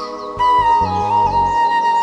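Background music: a melody of held notes stepping up and down in pitch.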